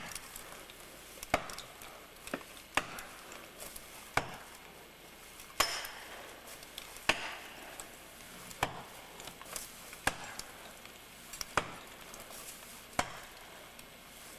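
About ten evenly spaced blows, roughly one every second and a half, driving a felling wedge into the back cut of a large tree to tip it over.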